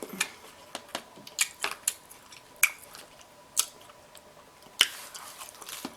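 Close-miked wet mouth smacking and chewing while eating king crab: a string of sharp, irregular smacks and clicks.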